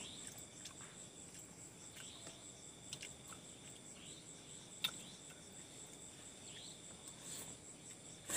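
Crickets chirping steadily and faintly in the night, a continuous high pulsing trill, with a sharp click about five seconds in.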